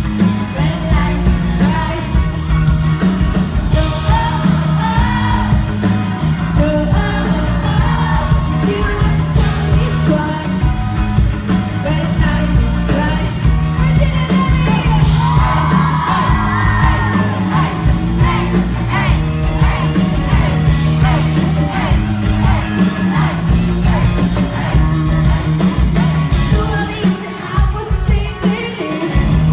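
Live pop-rock band playing a song with lead vocals, drums and bass, loud and bass-heavy as heard from the audience, with the crowd yelling and screaming along.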